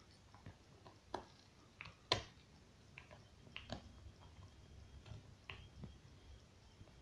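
A dog gnawing on a bone: irregular clicks and cracks of teeth on bone, the loudest crack about two seconds in.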